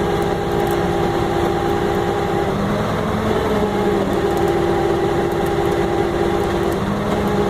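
Vehicle engine idling steadily, its note shifting slightly a few seconds in.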